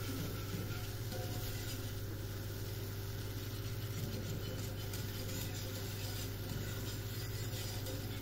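A steady low hum, with faint ticking and scraping from a whisk being stirred through béchamel sauce in a small saucepan.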